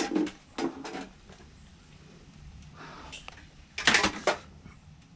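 Hard objects clattering and knocking as tools and scrap are handled, picked up and set down, in short irregular bursts with a louder cluster of knocks about four seconds in.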